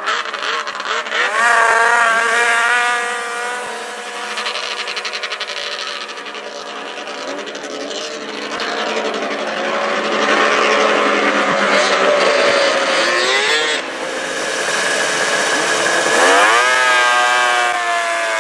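Snowmobile engines revving hard off the start line of a drag race, rising steeply in pitch and then holding at high revs as the sleds run away. Near the end another launch sends the engine pitch climbing steeply again.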